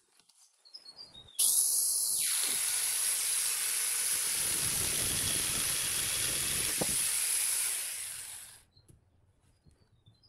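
Angle grinder fitted with a chainsaw attachment, running and cutting through a dead tree branch: it starts suddenly about a second in, runs steadily with a high whine, and dies away near the end. Birds chirp before it starts and after it stops.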